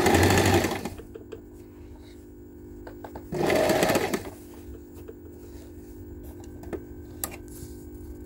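Butterfly JH8190X sewing machine stitching in two short runs: one for about the first second, another briefly near the middle. Between the runs a faint steady hum and a few light clicks.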